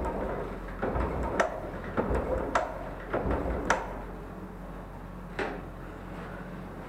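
A series of sharp knocks and clatters of hard objects being handled, several in the first four seconds and one more after about five and a half seconds, over a steady low hum.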